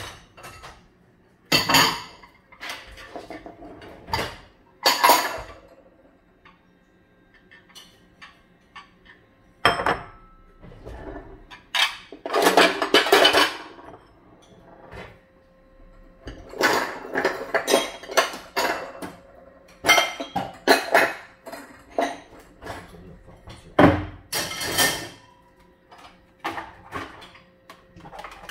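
Dishes and cutlery being handled: a long series of irregular clinks and clatters, busiest about twelve seconds in and again near twenty seconds.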